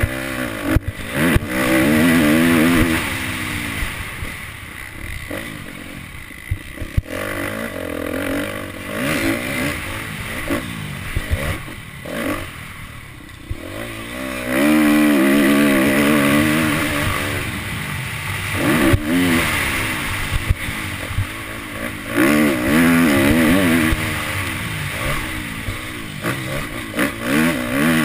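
Motocross dirt bike engine heard from the rider's helmet camera, revving hard and easing off in turn as the bike is ridden round the track, with loud spells of acceleration about two, fifteen and twenty-two seconds in. Short knocks and clatter from the bike over the bumps run through it.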